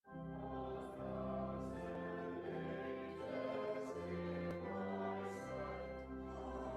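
Church offertory music: slow, sustained chords changing about once a second over a low bass line.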